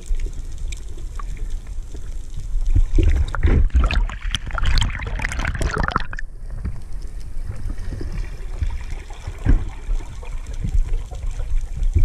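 Water noise heard underwater through an action camera's waterproof housing: a low, muffled rumble, with a burst of bubbling and splashing from about three to six seconds in that cuts off abruptly.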